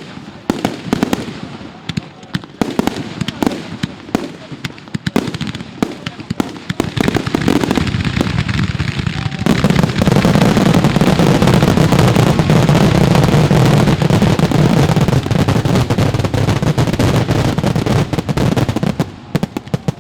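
Fireworks going off: a string of quick sharp bangs and pops, then about halfway through a dense, loud, continuous crackling barrage that thins out near the end.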